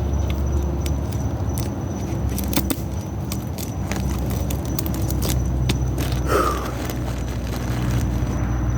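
Rubber bands being stretched and snapped onto a watermelon: an irregular scatter of sharp snaps and clicks, with a short squeak about six seconds in, over a steady low hum.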